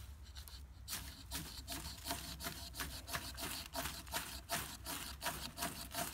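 Ferro rod scraped hard in quick repeated strokes, about three a second, starting about a second in, throwing sparks onto dry grass and feathered fatwood to light a fire.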